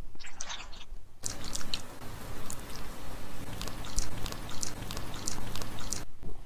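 Soft, close-miked rustling and crackling while cream is dabbed and spread on the face. It starts with a short patch of faint clicks and grows denser about a second in, then drops away near the end.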